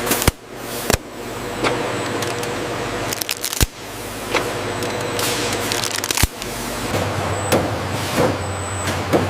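Factory production-line machinery running as a steady mechanical din, broken by several sharp clicks, with a low hum coming in near the end.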